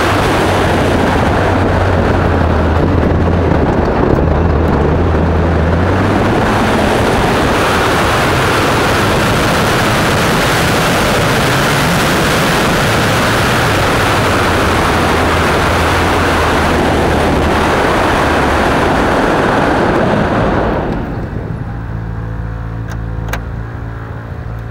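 Mitsubishi Lancer Evo X N4 rally car's turbocharged 2.0-litre four-cylinder running under load on gravel, heard under a loud even rush of wind and tyre noise. About twenty seconds in the rush falls away and the engine settles to a steady idle, with a single sharp click shortly after.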